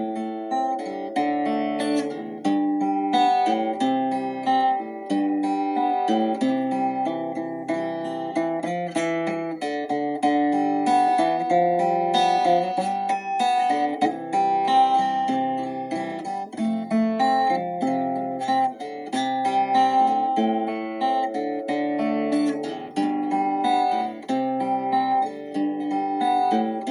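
Instrumental music on acoustic guitar, plucked notes and chords played steadily at a calm pace.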